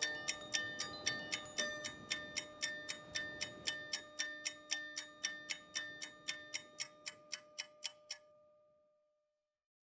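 Rapid clock-like ticking, about three to four ticks a second, over a few held tones, fading out to dead silence about nine seconds in.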